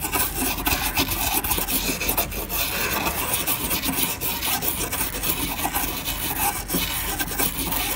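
Small brush scrubbing a laptop motherboard's components with quick, continuous back-and-forth strokes. The board has just been sprayed with WD-40, and the scrubbing loosens rust and grime from the chip pins.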